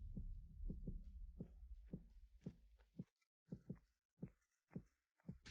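Faint, soft footsteps, about two a second, over a low rumble that fades out after the first couple of seconds.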